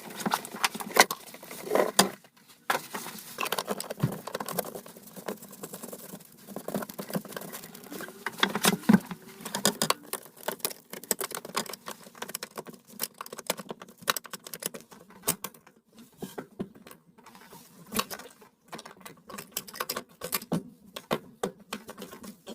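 Irregular small clicks, taps and rattles with brief scraping: hand work on a clogged bathroom sink drain, its stopper and parts being handled.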